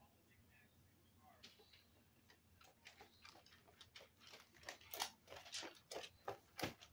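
Footsteps on a concrete driveway, a steady run of short clicks that grow louder as the walker comes closer.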